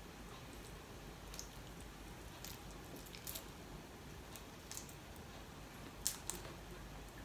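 A steamed tiger prawn's shell being peeled apart by hand: faint, scattered wet crackles and clicks, the sharpest pair about six seconds in.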